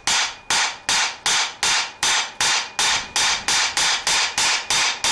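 A hammer striking metal in a steady rhythm, about three sharp ringing blows a second. The blows are knocks on a Briggs & Stratton small engine's flywheel to shock it loose from the crankshaft.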